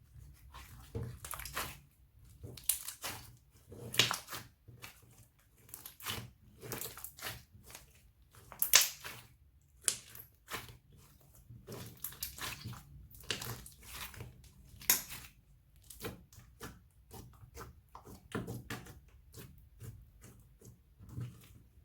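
Slime being squeezed and kneaded by hand, making irregular wet squishes, clicks and pops, the loudest pop about nine seconds in.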